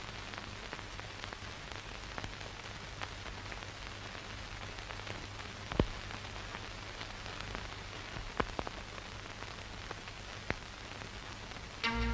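Steady hiss with scattered faint crackles and clicks: the background noise of an old film soundtrack during a pause with no dialogue. Near the end a plucked-string music cue begins.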